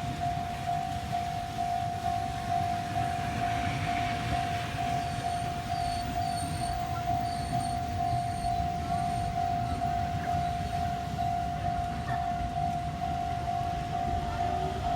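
Level-crossing warning alarm ringing continuously, one even repeating tone, over a low rumble.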